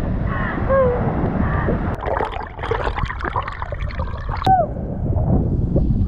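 Waterfall water rushing and splashing over a handheld action camera, gurgling and sloshing against the microphone, with a sharp knock about four and a half seconds in.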